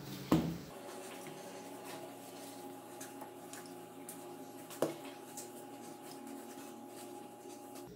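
Pizza dough being kneaded by hand on a granite countertop: soft pressing and squishing of the dough, with two thumps on the counter, a loud one just after the start and a smaller one a little past halfway, over a faint steady hum.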